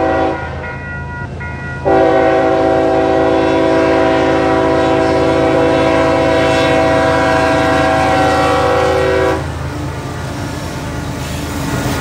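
Diesel freight locomotive's multi-note air horn sounding for a grade crossing: a short blast that ends just after the start, then one long held blast of about seven and a half seconds. Beneath it runs the low rumble of the approaching locomotives' diesel engines, which grows louder near the end as the lead units reach the crossing.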